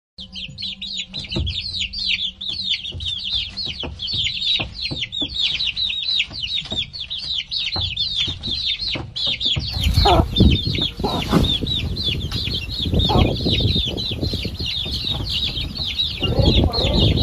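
A brood of baby chicks peeping constantly, a rapid stream of high, falling peeps. From about ten seconds in, lower, louder clucking sounds join them.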